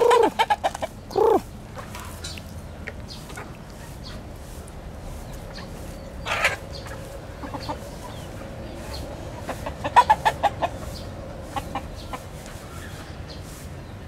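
Chickens clucking: two loud, short calls right at the start, then scattered clucks, with a quick run of clucks about ten seconds in.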